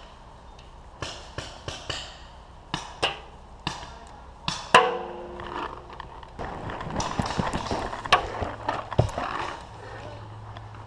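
Irregular sharp pops of paintball markers firing, about a dozen over the first five seconds, one followed by a brief ringing. After that comes a denser stretch of rustling and scuffing as the player moves through dry leaf litter.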